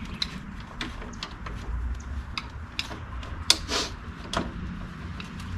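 Scattered clicks and knocks of hand tools and door hardware being worked on a side-by-side's plastic rear door, the loudest knock about three and a half seconds in, followed by a short scrape, over a low steady hum.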